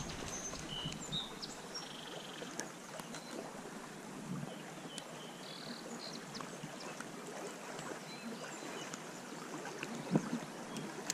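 Shallow stream water rippling steadily over a riffle, with a few short, faint bird chirps.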